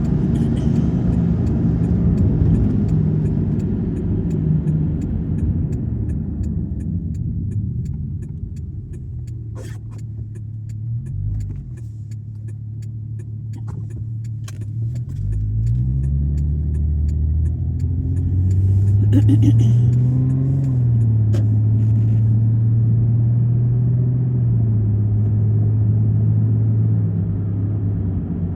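Car driving: steady engine hum and road noise, easing off about ten seconds in and then picking up speed again.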